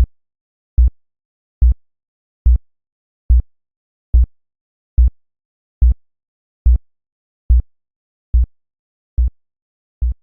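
Synthesized heartbeat sound: deep, short thumps repeating evenly a little faster than one a second, getting quieter near the end.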